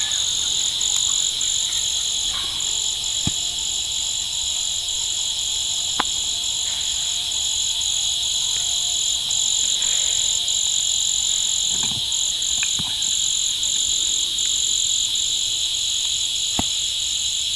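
Steady outdoor insect chorus: a continuous high shrill buzz, with a higher trilling band above it that keeps switching on and off. A few sharp single clicks stand out briefly, about three seconds in, six seconds in and near the end.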